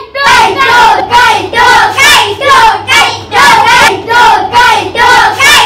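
A high-pitched child's voice singing a quick, rhythmic run of short syllables, about two a second, each sliding down in pitch.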